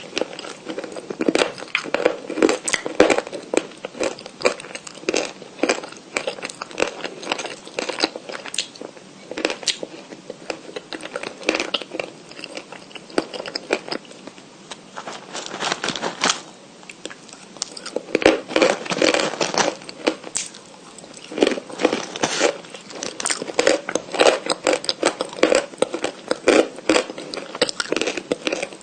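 Close-miked biting and crunchy chewing of white edible chalk: dense crackling clicks in bursts, with a couple of short pauses.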